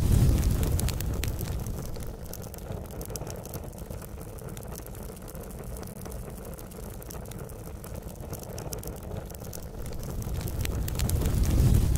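Low, steady rumbling sound effect with faint crackles. It dies down over the first couple of seconds and swells back up near the end.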